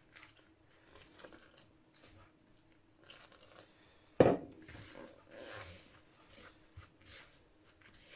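A silicone spatula stirring and scraping flour in a plastic mixing bowl, in scratchy strokes. About four seconds in comes one sharp knock, as a glass of water is set down on the wooden counter.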